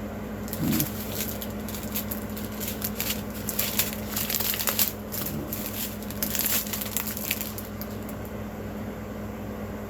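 Small plastic packets of diamond-painting drills crinkling and rustling as they are handled, in irregular crackly bursts that are busiest in the middle, over a steady low hum.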